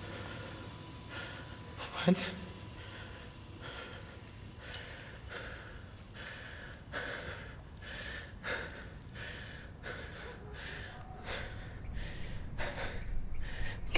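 A man breathing heavily in ragged gasps, a breath about every second, coming quicker and louder near the end. A single sharp click sounds about two seconds in.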